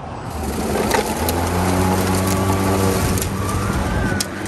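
Atlas 80-volt battery-powered lawn mower's electric motor starting up, its hum rising in pitch over about a second, then running steadily. A few sharp ticks sound as it is pushed into thick dry grass.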